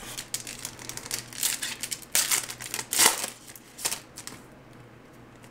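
Plastic trading-card pack wrapper crinkling and tearing, and cards being handled, in a quick run of short rustles and crackles that stops after about four seconds.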